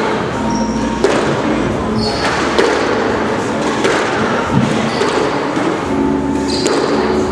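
Squash ball being struck during warm-up drills: sharp knocks of racket hits and the ball hitting the walls and floor, about one a second, over steady background noise of a large hall.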